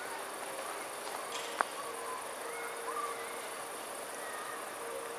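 Crickets chirring steadily, a high even hiss, with a few short faint chirps and a single sharp click about a second and a half in.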